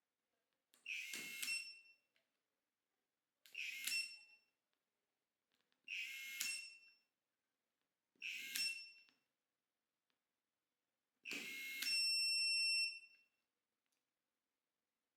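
Brushless electric torque screwdriver run five times. Each run is a brief whirr of about half a second that ends in a sharp click as the auto shut-off clutch trips, then a short high beep from the built-in controller. The fifth beep is held for about a second.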